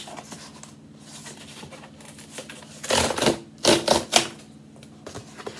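Cardboard parcel being opened by hand: faint handling at first, then a quick run of sharp tearing and crackling sounds about three seconds in.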